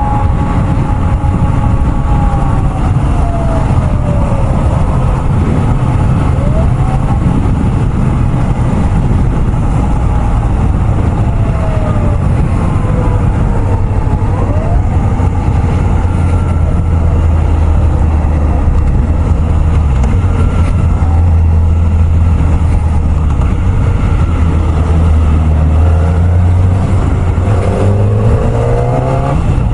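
Kawasaki ZX-4RR's inline-four engine running at expressway speed under heavy wind noise, with a police car siren wailing behind, slowly rising and falling. Near the end the engine note rises as the bike accelerates.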